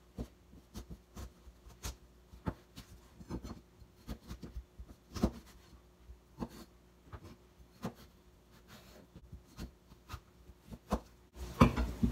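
Kitchen knife cutting burdock root lengthways on a plastic cutting board: scattered soft taps and knocks of the blade against the board, irregular, with one louder knock about five seconds in and a few more near the end.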